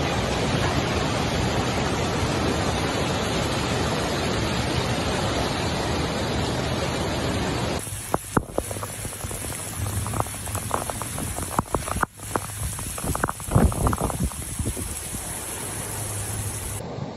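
Fast-flowing floodwater rushing in a steady, loud wash of water noise. About eight seconds in it cuts to heavy rain in gusting wind, with irregular gusts buffeting the microphone.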